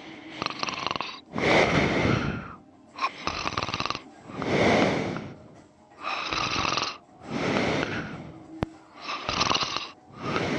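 A sleeping person snoring: a raspy snore on both the breath in and the breath out, one breath about every three seconds, four breaths in all. A single sharp click comes near the end.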